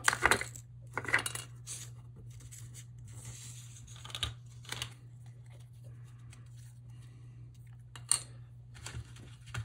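Small 3D-printed plastic model parts being handled, pressed together and set down on a tabletop: a few scattered sharp clicks and light taps, over a steady low hum.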